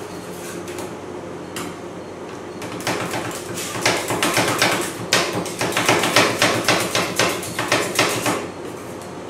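Two metal ice cream roll spatulas chopping down hard and fast on a steel cold plate, cutting fruit into the cream base. It starts as quieter scraping and becomes a rapid run of sharp metallic clacks, several a second, from about three seconds in until near the end.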